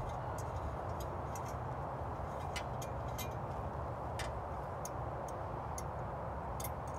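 Scattered light metallic clicks and clinks, about ten at irregular spacing, from small engine parts such as bolts and washers being handled during an intake manifold swap. They sit over a steady, even background noise.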